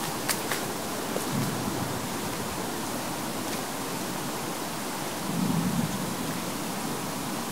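Distant low thunder-like rumbling, swelling briefly about a second and a half in and again, louder and longer, about five seconds in, under a steady hiss of strong ambient noise. There was no thunderstorm in the area, so the source of the rumbling is unexplained.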